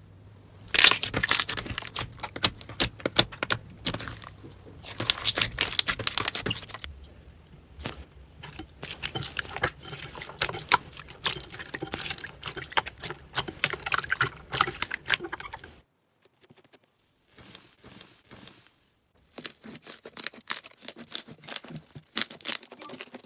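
Slime being squeezed, pressed and pulled by hand, giving dense runs of small crackling pops and clicks. The crackling stops for a few seconds past the middle, then resumes more faintly.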